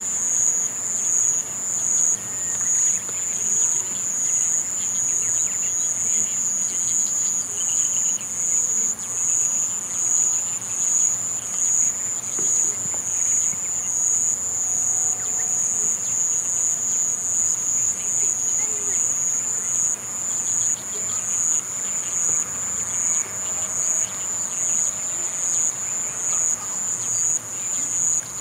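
A singing insect in the grass, a high-pitched, continuous trill that pulses in an even rhythm of a few beats a second.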